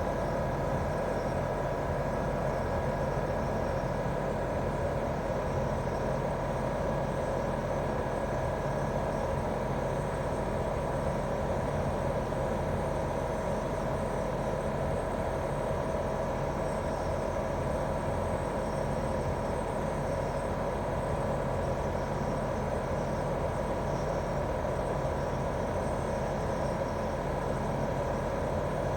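Daikin R28RMV mini-split outdoor unit running steadily in heating mode: its inverter-driven twin-cylinder swing compressor and fan give a constant low hum with a few held tones above it, without change.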